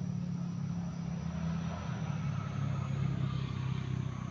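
A motor vehicle's engine running with a steady low hum that drops in pitch about halfway through.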